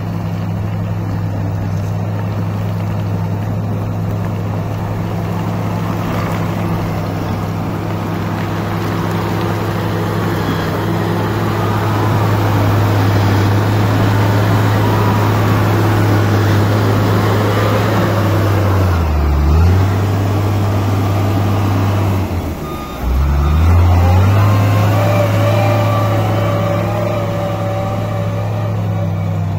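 Wheel loader's diesel engine running close by, steady at first and louder as it works the pile of broken asphalt. About two-thirds of the way through, its pitch sags and recovers twice.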